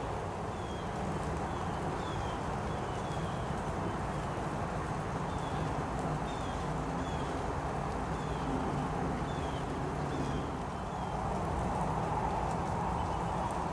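A small animal calling over and over in short, high, falling chirps, about one or two a second, over a steady low rumble.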